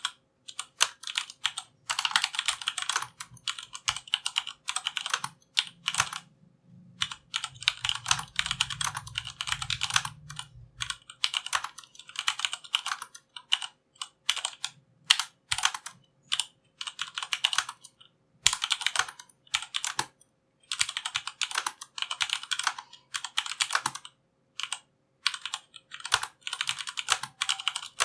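Typing on a Durgod Fusion mechanical keyboard with Cherry MX Brown tactile switches: quick runs of key clacks broken by short pauses.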